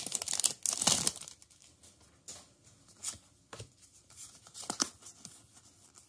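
Foil wrapper of a Pokémon trading-card booster pack crinkling and tearing open for about the first second, followed by a few faint clicks and slides as the cards inside are handled.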